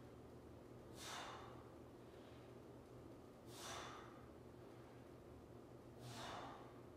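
A man breathing hard with exertion during a floor exercise: three audible breaths about two and a half seconds apart, over a faint steady low hum.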